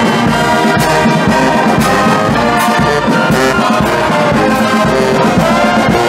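Brass marching band playing a tune: trombones, trumpets and sousaphones in held chords over a steady bass-drum beat.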